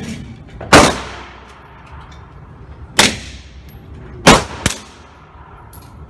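Suppressed SIG Sauer P320 9mm pistol fitted with an AAC Ti-Rant 45 suppressor firing three loud shots, about a second in, at three seconds and just past four seconds, with a fainter crack half a second after the last. Each shot echoes off the walls of the indoor range.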